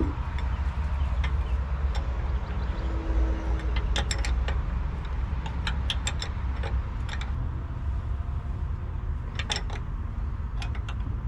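Sharp metallic clicks and clinks of hand tools on a hydraulic hose fitting being threaded in, in several short clusters, over a steady low rumble.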